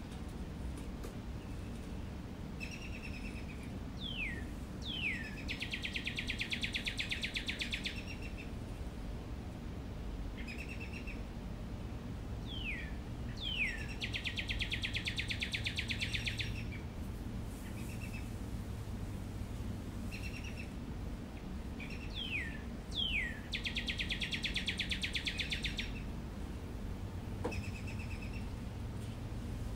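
A bird call played as a stage sound effect, repeating three times about nine seconds apart: two short high notes, two quick falling whistles, then a rapid buzzy trill lasting about two seconds. A low steady hum sits underneath.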